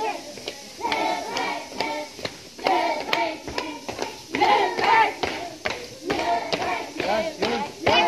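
Group of children chanting a prayer together in high voices, with sharp hand claps about twice a second.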